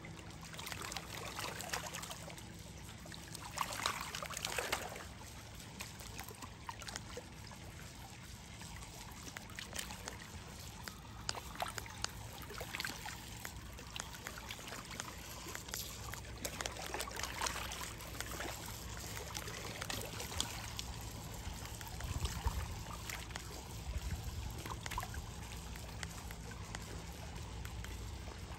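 Small lake waves lapping and trickling at the water's edge, with frequent brief splashes.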